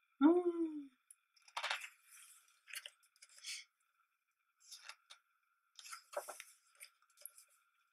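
Pages of a thick hardback photobook being turned by hand: a series of short paper rustles and slides. Just after the start, a brief hummed voice sound falls in pitch and is the loudest thing.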